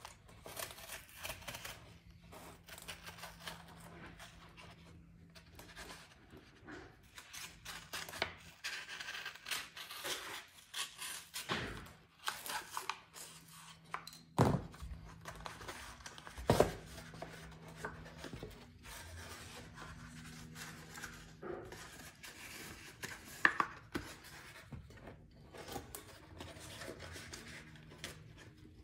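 Utility knife blade slicing and scraping around the edge of a speaker cone, in short irregular cutting strokes, with a few sharp knocks from the handled metal speaker frame.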